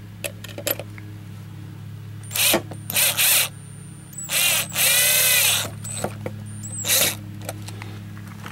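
Compact power screwdriver with a long bit driving a screw into a PVC handrail bracket, in four short bursts, the longest about a second and a half, snugging the screw down. The motor's pitch rises and falls within that longest burst.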